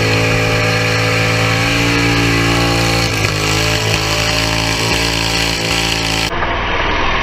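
Car engine held at high revs, as for a burnout, running steadily with a brief dip about three seconds in. About six seconds in the sound cuts to a rougher, rattling engine sound from another recording.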